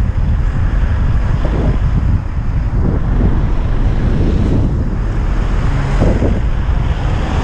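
Heavy wind buffeting the microphone of a camera on a moving bicycle, a loud, steady low rumble.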